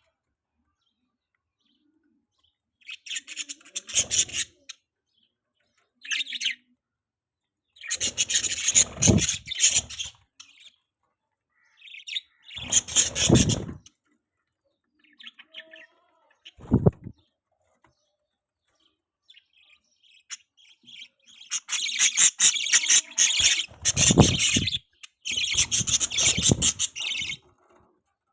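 Baby budgerigar chirping in several bursts of rapid chirps with silent gaps between them, the longest and loudest run near the end.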